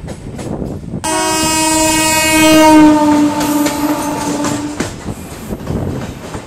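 Indian Railways locomotive horn sounding one long blast of nearly four seconds, starting abruptly about a second in, as a passenger train passes at speed on the adjacent track. After the horn stops, the passing coaches' wheels clatter over the rail joints.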